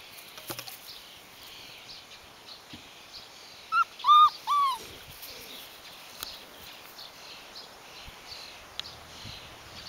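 Rhodesian Ridgeback puppy giving three short, high whimpers in quick succession about four seconds in, each rising and falling in pitch.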